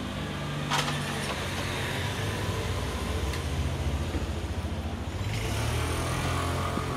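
City street traffic: motor vehicle engines running with a steady low hum, with a short sharp click about a second in.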